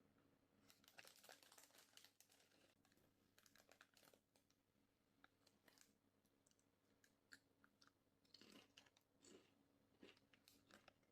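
Faint, crunchy chewing, heard as irregular clusters of crackly clicks that come and go.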